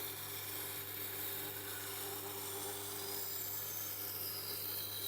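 Tormek T8 wet grinder running with a steady low motor hum while a steel knife blade is held against its turning grindstone, giving a steady scraping hiss of steel on stone.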